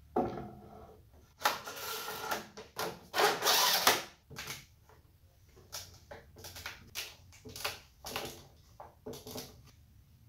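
Padauk boards and parallel bar clamps handled while an edge-glued panel is clamped up. Wood knocks on wood and the clamp jaws clatter and scrape, with a dense rattling, scraping stretch about a second and a half in, then a string of short clicks and knocks.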